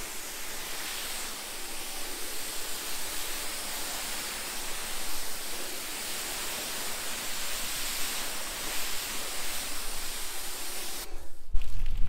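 Pressure washer lance spraying a jet of water against a car's door panel, a steady hiss, rinsing off the snow-foam pre-wash. The spray cuts off suddenly near the end.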